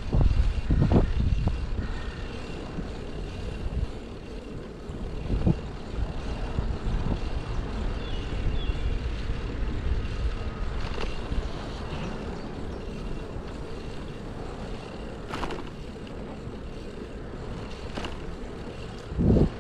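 City road traffic: vehicle engines and tyres rumbling past unevenly, with a few short sharp knocks.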